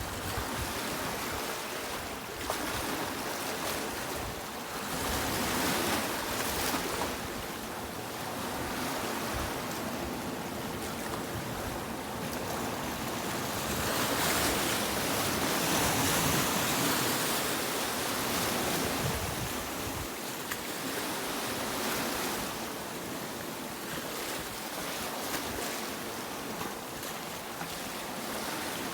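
Sea waves washing onto a beach, a steady surf hiss that swells and eases every few seconds, with the biggest surge about halfway through.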